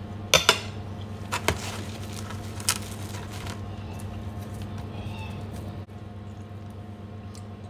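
Knife and fork clinking against a plate, several sharp clicks in the first three seconds, over a steady low hum.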